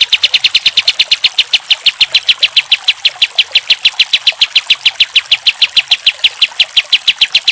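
Kapas tembak bulbul singing a rapid, even trill: one sharp high note repeated about ten times a second without a break.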